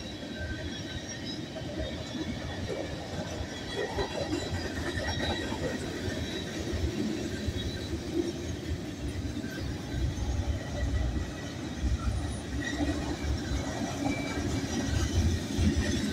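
Freight train cars rolling past, steel wheels rumbling and clicking over the rails with a faint wheel squeal. The rumble grows louder from about ten seconds in as the cars pass closer.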